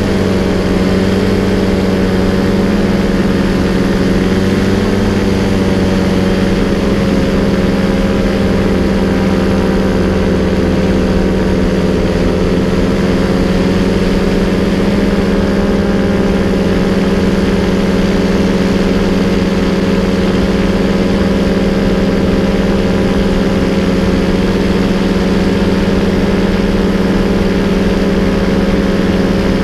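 Powered paraglider's paramotor engine and propeller running steadily in flight, a loud, even drone; its pitch wavers slightly in the first few seconds, then holds steady.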